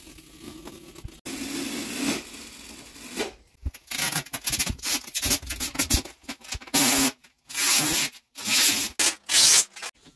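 Protective plastic film being peeled and pulled off the engraver's lid and panels, rustling and crackling. It comes in a run of short bursts that grows busier and louder after the first few seconds.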